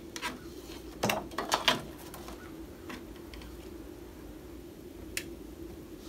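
A vinyl record being handled on a Victrola turntable: clicks and knocks as the disc is lifted off and set back on the platter, loudest in a cluster between one and two seconds in. A single sharp click comes about five seconds in, and a steady low hum runs underneath.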